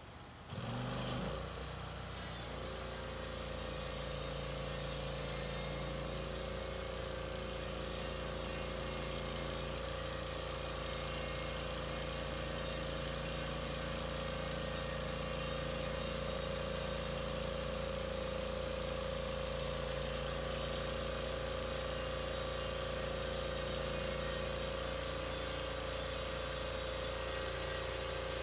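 Engine of a Norwood LumberPro HD36 portable bandsaw mill starting up about a second in, then running steadily at an even pitch.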